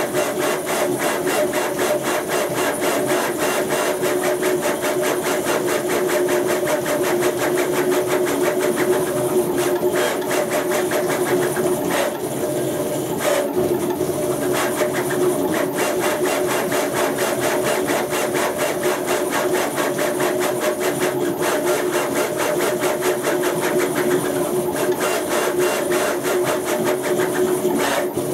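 Stepper motors of a CNC router, driven by a Gecko G540 stepper driver, moving its axes while it 3D prints. They make a steady buzzing whine with two held tones that changes character briefly now and then as the moves change.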